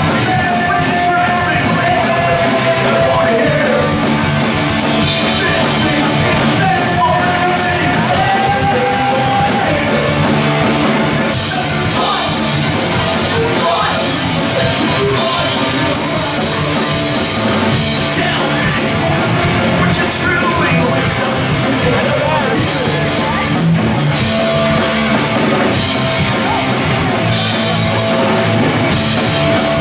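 Punk band playing live: electric guitar, bass guitar and drum kit, with a vocalist singing and yelling through the PA. The vocals are heard through roughly the first third and again near the end.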